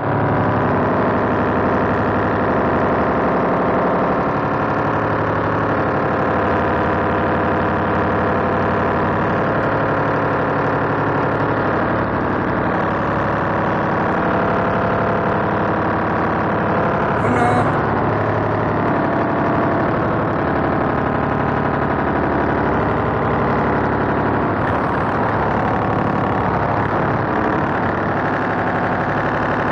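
An engine idling steadily, a loud, constant-pitched hum that does not change, with one sharp click a little past halfway through.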